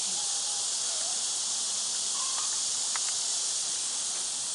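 Steady high-pitched drone of an insect chorus, with a few faint brief calls and clicks over it.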